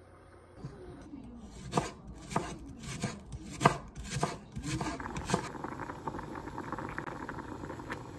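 Kitchen knife chopping a green onion stalk on a wooden cutting board: sharp knocks, a bit under two a second, starting about two seconds in. About five seconds in they give way to the steady hiss and small pops of a pot at the boil.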